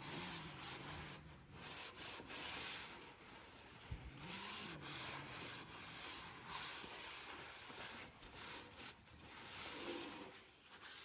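Faint rubbing in a string of strokes that start and stop every second or two: paper towels wiping down the steel top of a Blackstone griddle.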